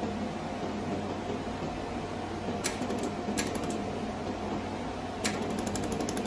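Pulsed laser welder firing on steel: single sharp clicks about two and a half and three and a half seconds in, then from about five seconds a rapid, even train of clicks as the foot pedal is held for continuous pulsing. Under it runs the steady hum of the machine's air and water cooling.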